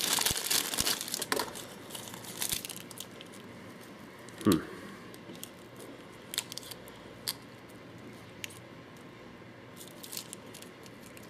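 Plastic packaging crinkling as a paintball hopper's speed feed is unwrapped, dense for the first second or so, then scattered light handling clicks with one louder knock about four and a half seconds in.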